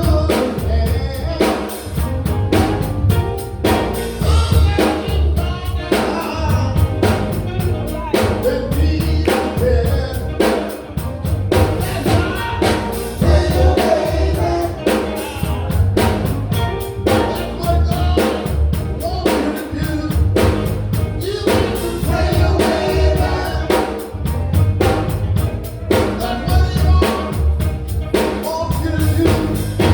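Gospel group singing with a live band, the drum kit keeping a steady beat under the voices.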